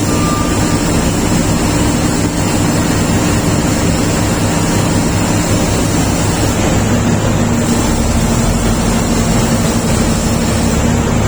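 Diesel engine of a Shantui SD32 crawler bulldozer running steadily, with a dense mechanical rumble and a slight drop in engine pitch about seven seconds in.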